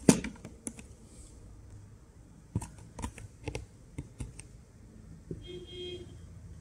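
A glossy paper card being handled and flexed between the fingers, giving scattered soft crinkles and ticks, the sharpest right at the start.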